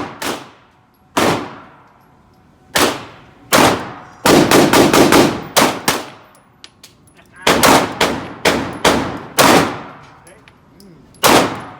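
Glock 17 9mm pistol gunshots at a shooting range, about fifteen shots at uneven spacing, including a quick string of about six a little over four seconds in, each shot followed by a short echo.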